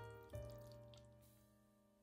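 Faint background piano music: a soft chord struck about a third of a second in and slowly fading away.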